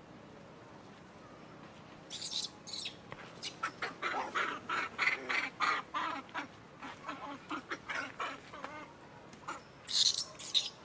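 Short high animal calls: a dense run of quick squeaks and chirps through the middle, with sharper, louder screeches about two seconds in and again near the end.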